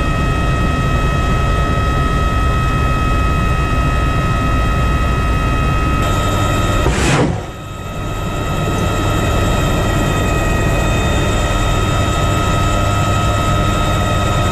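Helicopter noise heard inside the cockpit of a Marine AH-1Z attack helicopter in flight: a steady, loud rumble of rotor and turbine with several steady whining tones. About halfway through, a brief rushing surge passes, then the noise dips for a moment and builds back.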